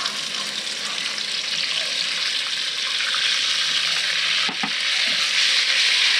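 Beef deep-frying in hot oil in a wok: a steady sizzle that slowly grows louder, with one short knock about four and a half seconds in.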